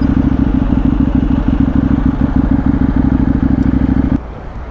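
Motorcycle engine idling, a loud steady rumble with a fast even pulse, that cuts off suddenly about four seconds in.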